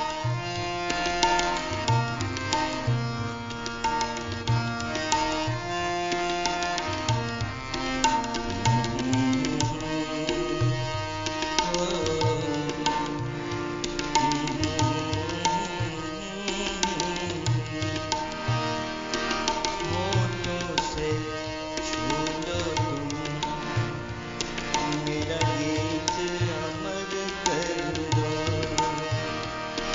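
Instrumental Indian music: tabla keeping a steady rhythm of low drum strokes beneath a sustained, gliding melodic line.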